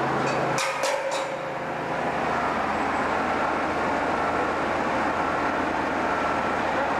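Heavy construction machinery running with a steady drone, with a few sharp clicks about a second in and a faint high beep repeating at intervals.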